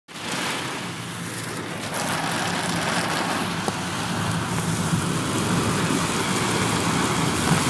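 Floodwater rushing across a road: a loud, even rushing noise, with a low steady engine hum underneath. It cuts off abruptly at the end.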